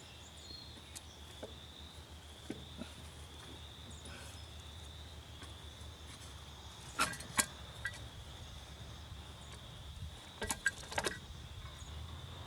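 A few sharp clicks and knocks of parts being handled as the air cleaner comes off a small Briggs & Stratton engine, two about seven seconds in and a cluster around ten to eleven seconds. Under them runs a steady high insect trill.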